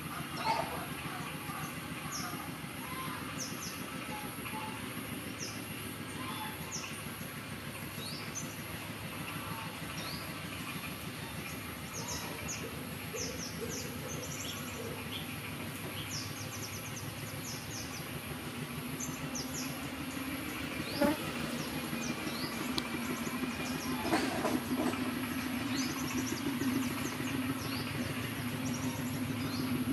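Outdoor background: a steady low mechanical hum that grows stronger over the second half, with many short high-pitched chirps of small birds and a single sharp knock about two-thirds of the way through.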